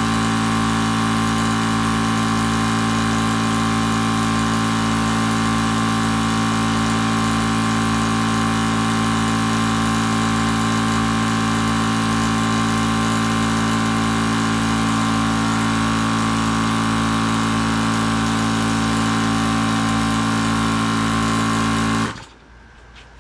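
A 4000 psi (300 bar) electric high-pressure air compressor runs with a steady, even hum while filling a scuba tank. It cuts off suddenly near the end.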